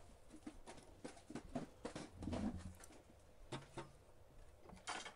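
Faint, irregular clicks and light knocks of a fret saw being picked up and handled over a metal sheet on a wooden bench peg, with one soft thud about halfway through.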